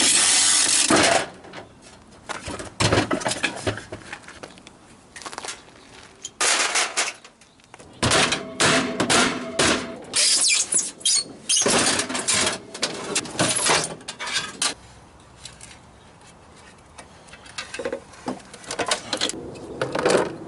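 Scrap metal being pried and torn from a discarded refrigerator with hand tools: irregular scraping and clanking in bursts of a second or two, separated by short pauses.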